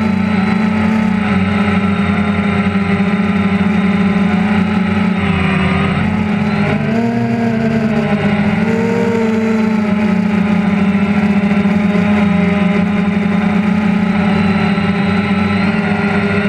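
Quadcopter drone's motors and propellers running with a steady buzzing hum, heard from on board the drone. The pitch wavers up and down a little between about five and ten seconds in.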